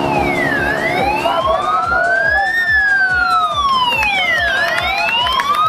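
Wailing siren of a race escort vehicle, its pitch rising and falling slowly, about once every four seconds.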